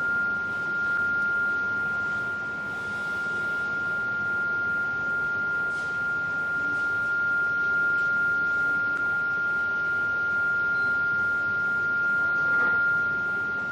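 Steady 1,400 Hz pure tone from a function generator sounding in a resonance tube. Its loudness swells and eases a little as the tube end is slid to search for the first loud resonance position.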